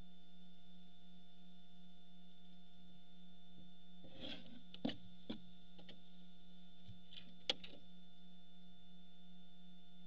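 Steady electrical hum from the nest box microphone, with a few short scratches and knocks from barn owls shifting on the box floor between about four and seven and a half seconds in.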